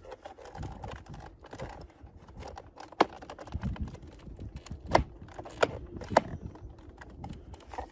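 Hard plastic door-handle trim parts clicking and knocking as they are handled and tried into place, with scattered light clicks and four sharper clicks in the middle.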